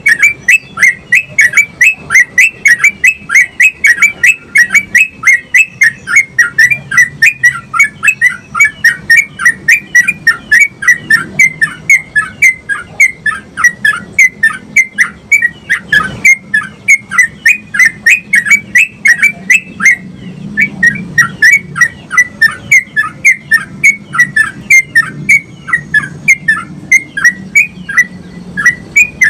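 Yellow-vented bulbul (trucukan) singing a long rolling 'ropel' run: short, clear whistled notes repeated about four times a second, with one brief break about halfway through.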